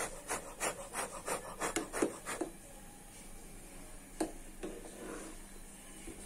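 Metal ladle stirring dumplings in a pot of boiling water, scraping against the pot in a quick run of strokes, about three a second, for the first two and a half seconds. Then two light knocks about four seconds in.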